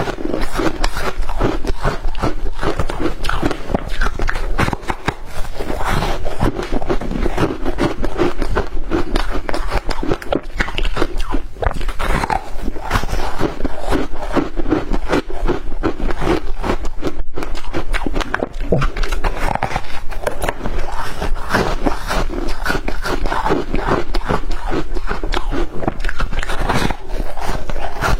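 A person chewing and crunching shaved ice with their mouth, a loud, dense run of irregular crackles and crunches.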